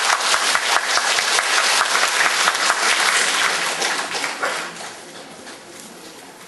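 Audience applauding, a dense patter of many hands clapping that fades away about four to five seconds in.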